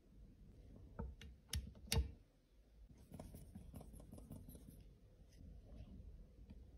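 Plastic powder compact being handled: four sharp clicks and taps in the first two seconds, then faint light scraping and rustling as a sponge puff is set into the case.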